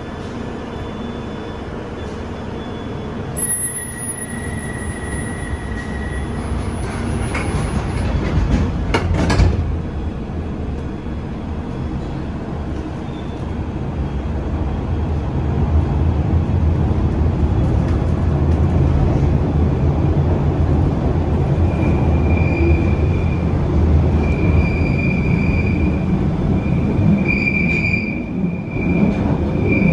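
London Underground Bakerloo line 1972 Stock train running through a tube tunnel: a steady rumble of wheels and motors that grows louder about halfway through. There is a brief high whine early on, a sharp clatter around nine seconds, and wheel squeal on and off in the second half.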